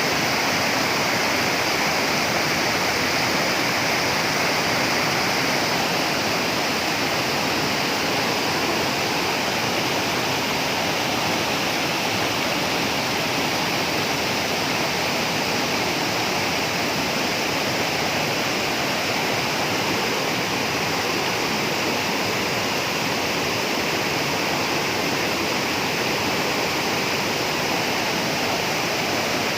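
Waterfall, its falling water making a steady rushing noise.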